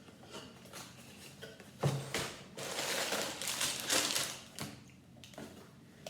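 Cardboard Lego set box being opened by hand: a sharp click a little under two seconds in, then a couple of seconds of crinkling and rustling packaging with small clicks.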